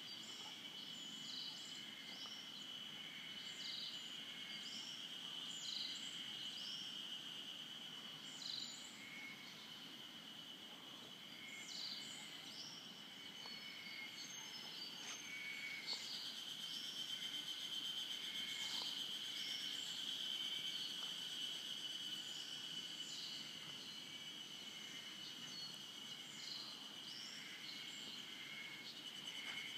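Birds calling in short chirps repeated every second or two over a continuous high-pitched steady drone.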